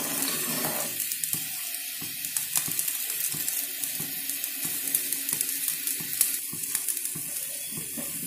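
Water-based syrup of sugar and salt over an oil tempering boiling in a small steel saucepan on a gas burner, a dense, rapid bubbling with fine crackle as it comes up to a rolling boil.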